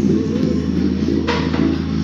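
Music with a heavy, sustained bass line played loudly through a JBL Flip 4 portable Bluetooth speaker; the bass note shifts about half a second in.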